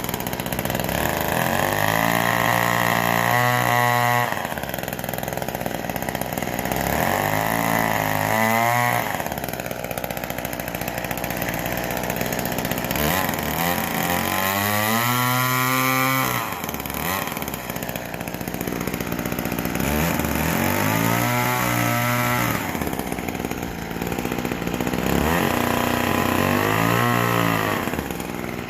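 McCulloch Mini Mac 120 two-stroke chainsaw running and revving up and falling back about five times, with lower idling between the revs. The owner blames its unruly running on the racing fuel in it.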